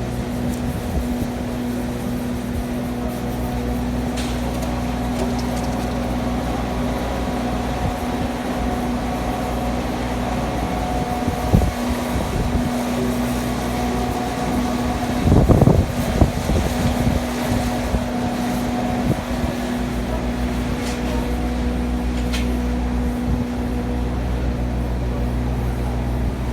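Squally wind rumbling against the microphone over a steady mechanical hum. There is a short sharp gust or knock a little before the middle and a louder rough surge just after it.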